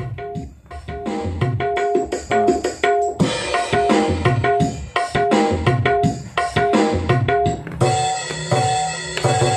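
Recorded music with a steady drum beat and a melodic line, played through a loudspeaker driven by a TPA3110 class-D mini amplifier board under test.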